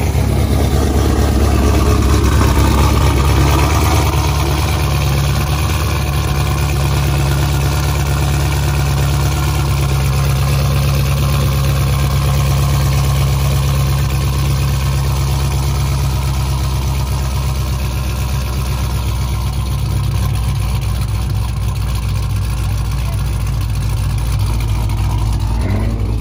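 Supercharged Dodge Charger V8 running through its exhaust. It is loudest in the first few seconds, where the revs fall back, then holds a steady idle.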